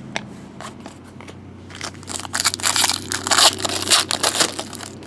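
Foil trading-card pack wrappers crinkling as they are crumpled in the hands: a dense crackling that starts about two seconds in and lasts a little over two seconds, after a few light clicks.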